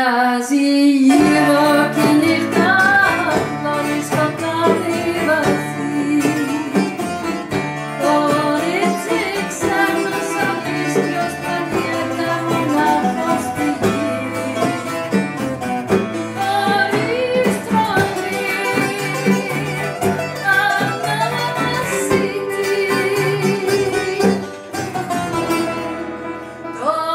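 Small acoustic band playing rebetiko-style music, with bouzouki and guitar to the fore over a bass line, and a woman singing the melody.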